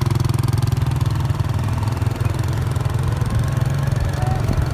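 Small motorbike engine idling and running at low speed, a steady fast low-pitched putter.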